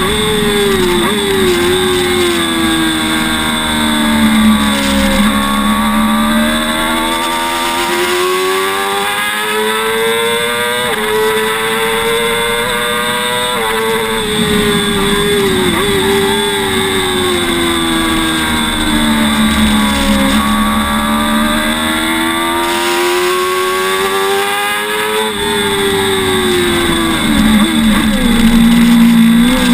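Sport motorcycle engine heard from on board at speed, its note climbing over several seconds as it accelerates, then falling away, in repeated cycles with a few quick steps in pitch.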